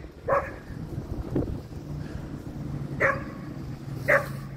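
Dogs barking in short single barks, about four in all, as the school bus arrives. Under the barks, from about two seconds in, runs the steady low drone of the bus's engine.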